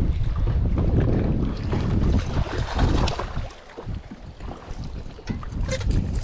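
Wind buffeting the microphone, an uneven low rumble in gusts that eases about halfway through. A sleeve brushes close past the microphone at the start.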